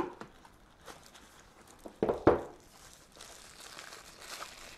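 Frosted plastic sleeve crinkling and rustling as it is handled and slid out of its cardboard box, with a sharp tap at the start and a louder rustle about two seconds in.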